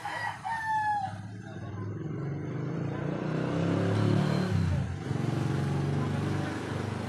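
A motor vehicle's engine running nearby, its hum growing louder to a peak about four seconds in, then easing a little and running on. A short rooster crow sounds near the start.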